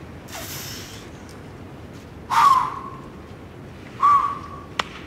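A climber's short, loud effort yells, one about two seconds in and another near four seconds, each a harsh burst that settles into a held cry, made while straining through hard moves at his limit. A single sharp click follows just before the end.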